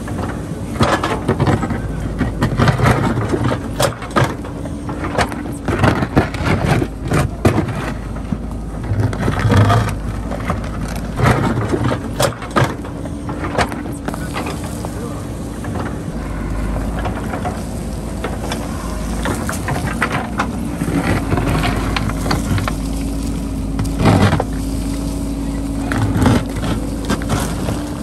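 JCB backhoe loader's diesel engine running steadily under load while the bucket digs and scrapes through rocky soil, with rocks knocking and clattering against the steel bucket. The knocks come thick through the first half and a few more near the end.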